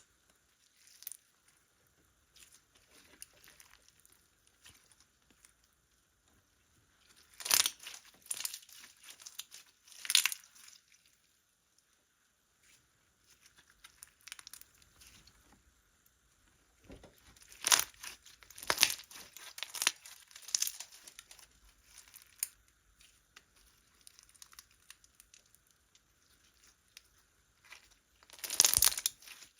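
Slime being squeezed, stretched and pressed by hand, giving off crackling and popping sounds in scattered clusters, with louder bursts about a quarter of the way in, around the middle and just before the end.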